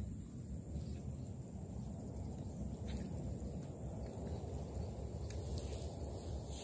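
Open-air ambience: a low, steady rumbling rush like wind on the microphone, with a thin, steady high insect whine and a few faint ticks.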